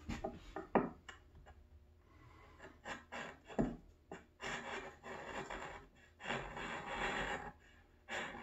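Bench chisel pared by hand into a wooden timber-frame joint: two long scraping cuts as the blade shaves chips off the wood, after a couple of short knocks in the first half.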